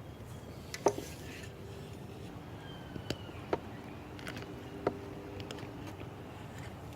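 Digging in garden soil: a few sharp knocks and scrapes of a digging tool, the loudest about a second in, over a steady low background.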